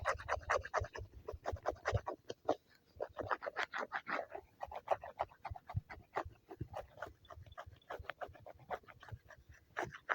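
Drawing pen scratching across a tablet screen in quick, irregular strokes.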